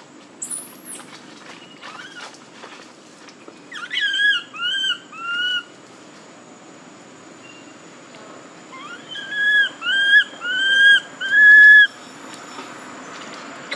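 Baby macaque crying: short, high-pitched arched calls, a bout of about four a few seconds in, then a louder bout of about four near the end.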